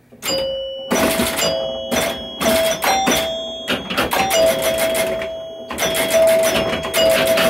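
Chime box of a 1973 Williams Travel Time pinball machine, fitted with Gottlieb chime bars, ringing during play: a dozen or more sharp strikes in quick bunches, each sounding one of a few bell-like notes that ring on and fade.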